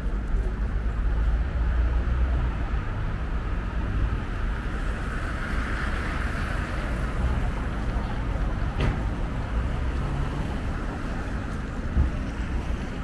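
City street traffic noise with wind rumbling on the microphone; a vehicle passes, swelling around the middle. A short thump near the end.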